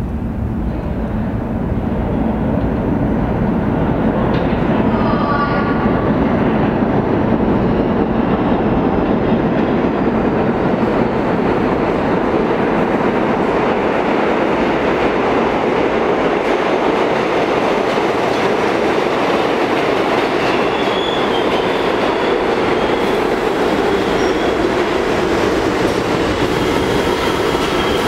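R68/R68A subway train running into an underground station: a steady rumble of steel wheels on rail that builds over the first couple of seconds and echoes off the tunnel walls. A faint high squeal comes in near the end as the train slows along the platform.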